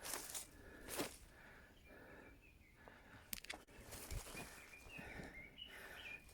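A hiker's footsteps on a mountain trail: a few separate steps, the firmest near the start, about a second in and just past three seconds, with faint bird calls in the background.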